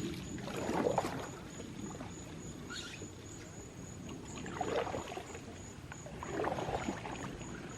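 Kayak paddle strokes in the water, three soft swishing strokes: about a second in, about four and a half seconds in, and about six and a half seconds in.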